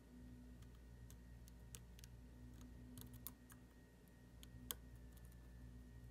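Faint, irregular metallic ticks and clicks of a lock pick working the pins of a VSR dimple cam lock, with one sharper click about two-thirds of the way through, over a low steady hum.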